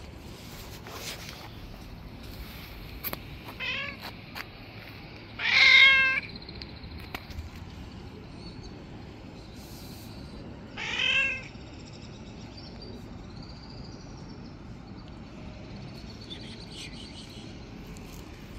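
Street cat meowing three times: a faint meow about three and a half seconds in, a loud drawn-out meow just before six seconds, and another about eleven seconds in.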